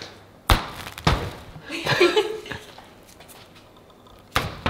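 Sharp slaps on plastic sheeting, two close together early and another near the end, from a gloved hand striking the tent's ceiling. A short vocal sound falls between them.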